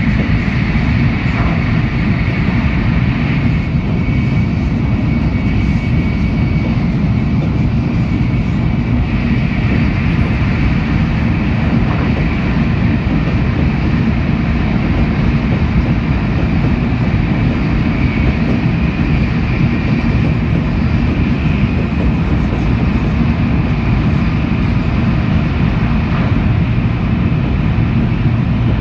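Inside a Shinkansen passenger car running at speed: a steady, loud rumble of wheels and air with a faint high whine, unchanging throughout.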